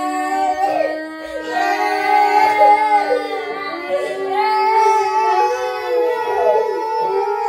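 Several children's high, wavering voices wailing at once, with crying close on either side.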